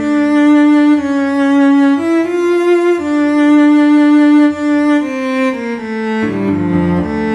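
Instrumental music: a MuseScore-generated cello plays slow, sustained notes that change about once a second, with piano, and the line moves lower near the end.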